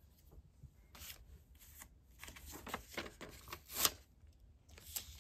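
Paper sticker sheet being handled and rustled by hands, in a few short crinkles, the loudest a little under four seconds in, as a sticker is taken off to seal a mailer.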